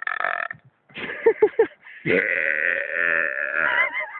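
A man's long, drawn-out belch, starting about two seconds in and held for nearly two seconds, loud enough to carry down the street.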